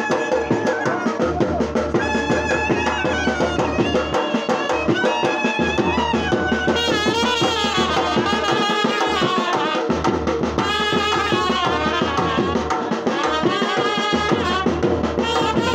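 A small band of trumpets and a drum playing a folk tune, the trumpets carrying the melody over steady drumbeats.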